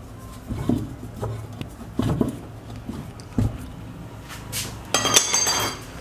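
T-handle wrench turning the centre bolt that holds a top-loading washing machine's plastic pulsator, with irregular metal clinks and knocks as the tool works the bolt loose. About five seconds in there is a louder stretch of metallic clinking and rattling.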